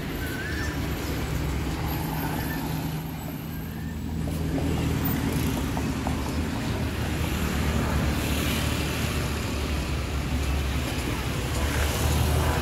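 Street traffic noise with a steady low engine hum from motor vehicles running close by.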